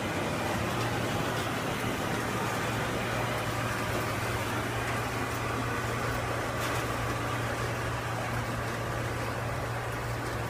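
Océ VarioPrint 120 high-speed black-and-white production printer running a print job: a steady mechanical whir with a constant low hum.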